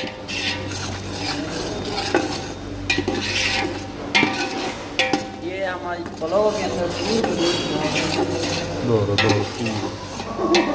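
A metal spoon stirring and scraping browned onions that are sizzling in oil in an aluminium pot. The spoon knocks against the pot every second or so.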